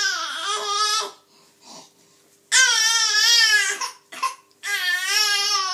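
A five-month-old baby crying in long, high wails. The first wail ends about a second in, a second one comes near the middle, and a third starts near the end.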